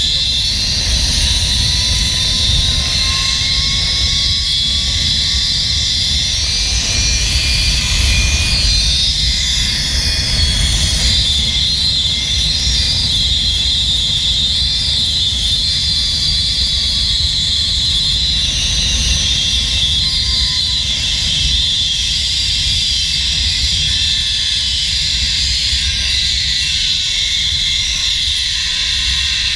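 Zipline trolley pulleys running along a steel cable, a steady high whir and hiss, with wind rumbling on the microphone.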